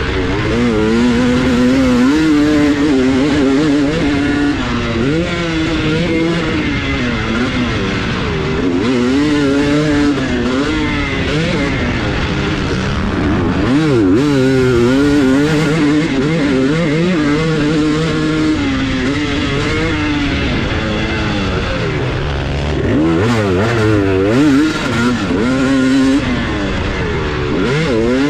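Two-stroke motocross bike engine revving hard and easing off again and again as it is ridden around the track, its pitch climbing and dropping with the throttle and gear changes, heard close up from on the bike.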